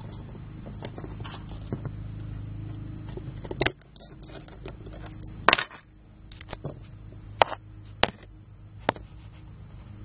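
Heavy aluminium East German Volkspolizei handcuffs worked by hand: the bow ratchets into the lock body in a series of sharp metallic clicks, five of them loud and spaced irregularly, with lighter ticks between.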